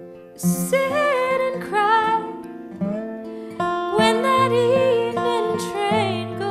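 Live acoustic country music: guitars playing, with a lead line that slides and wavers in pitch.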